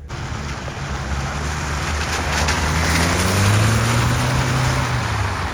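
Off-road 4x4 engine revving up under load, its pitch rising about two seconds in and then holding, over a loud rushing noise.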